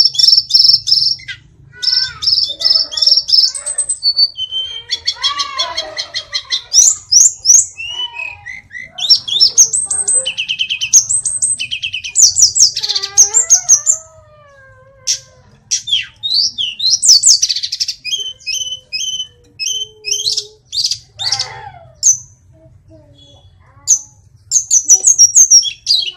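A caged male hill blue flycatcher singing a long, varied song of rapid trills, fast repeated notes and sliding whistles, with a short pause about halfway.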